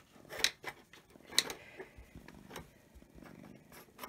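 A cat's claws and paws clicking and tapping on a hard desktop as it walks and turns. Two sharper clicks come about half a second and a second and a half in, with a few fainter ticks after.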